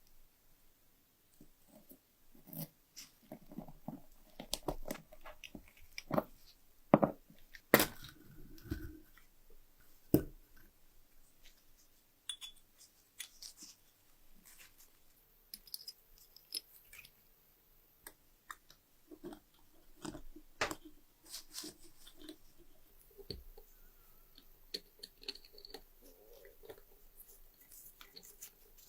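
Hand work on a small brass lighter: irregular small clicks, taps and scrapes of metal parts being handled, with a few sharper knocks about 7 to 10 seconds in.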